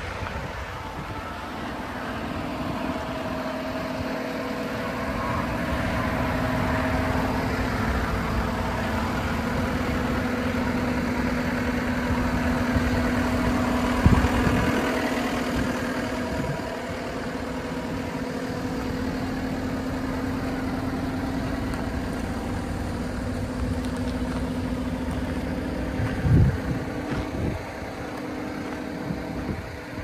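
Diesel engine of a John Deere 333G compact track loader idling steadily. Two brief thumps cut through, one about halfway through and one near the end.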